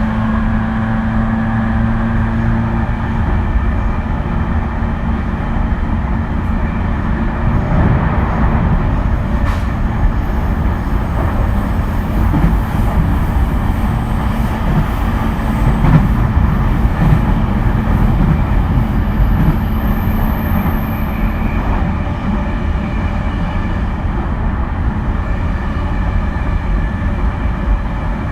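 JR East E231 series electric train running along the track: a steady rumble of wheels on rail with irregular knocks over rail joints. A low motor hum is strong for the first few seconds, then fades to faint and dies away at around twenty seconds.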